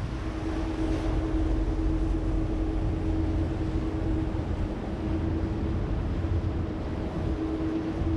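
Boat engine running steadily: a constant low rumble with a steady hum over it.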